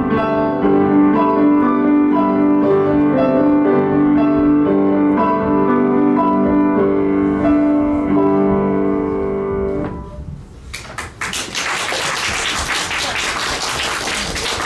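Grand piano played four hands, a duet that comes to its final chord about two-thirds through and rings away. Then a room of listeners applauds.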